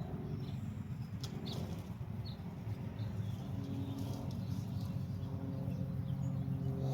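A steady low hum with a few short, high bird chirps in the first half.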